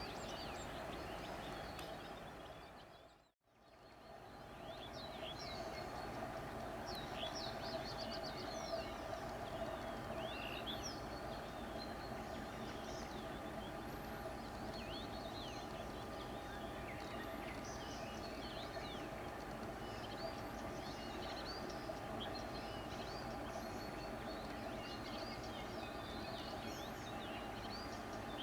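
Small birds chirping busily over a steady mechanical hum. The sound cuts out briefly about three seconds in and fades back in.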